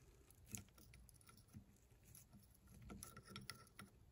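Faint, scattered light metal clicks from pliers working the freshly oiled steel ball in the head of a Wright 3/4-inch-drive round-head ratchet, working the lubricant down into the mechanism. One click comes about half a second in and a small cluster comes around three seconds in.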